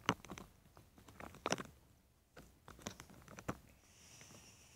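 Handling noise from a handheld phone camera moved about against bedding: a few sharp clicks and light rustles, then a soft hiss near the end.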